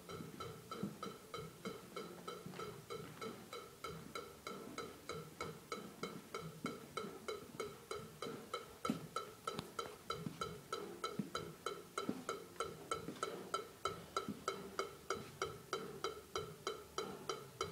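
Faint metronome click track ticking evenly at about three clicks a second, each click a short pitched beep.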